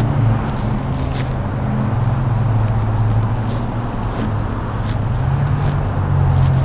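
Engine of a 2007 Ford F-150 Harley-Davidson with a Saleen-supercharged V8 idling steadily, heard from inside the cab as a low, even hum, with a few faint clicks.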